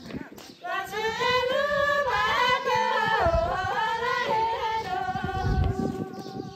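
A woman's high voice singing slow, long held notes that waver and slide in pitch, starting about a second in.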